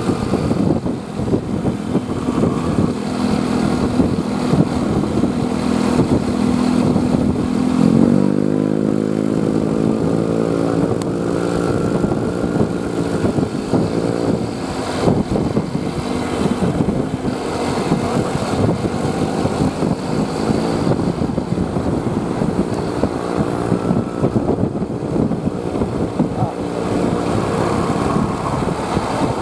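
A road vehicle engine runs steadily with a low, even note, then revs up about eight seconds in, its pitch rising and then levelling off as it accelerates.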